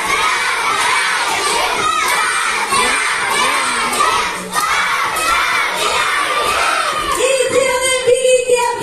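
A crowd of young children shouting and cheering all at once, loud and overlapping. About seven seconds in, one voice rises above the rest in a long held call.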